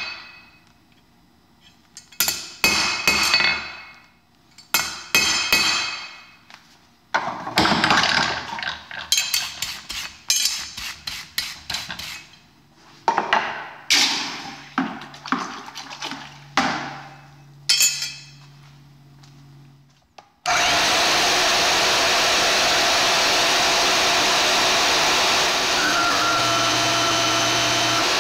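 A hand hammer strikes a steel rod on a steel anvil in quick runs of ringing blows separated by pauses. About two-thirds of the way through, the blows give way abruptly to a bandsaw running steadily and loudly.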